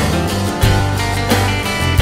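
Background music: strummed guitar over a steady beat.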